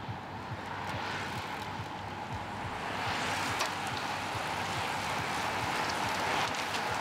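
A group of road bicycles riding close past, with tyres hissing on the tarmac and a few scattered mechanical clicks. The sound grows louder and brighter about three seconds in as more riders come near.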